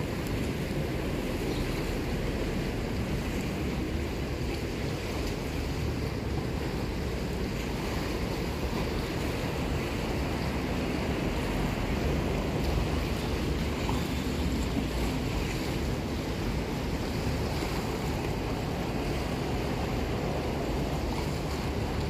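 Sea waves washing and breaking against granite boulders at the shoreline, a steady rush without let-up, with wind rumbling on the microphone.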